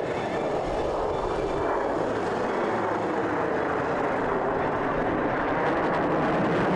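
Jet engine noise from a formation of four F-16 Fighting Falcon fighters flying past: a steady rushing noise that grows slowly louder.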